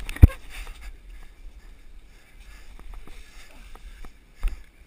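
Runners' feet landing and kicking loose straw close to the microphone: a sharp thump about a quarter second in, then low rumbling and a few light knocks, with more thumps near the end.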